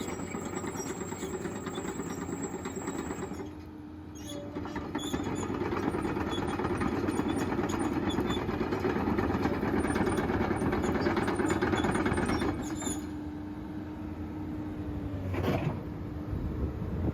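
Komatsu PC210LC-7 excavator's six-cylinder diesel engine running, joined by a steady whine after a few seconds. It grows louder for several seconds in the middle, then eases back, with one sharp knock near the end.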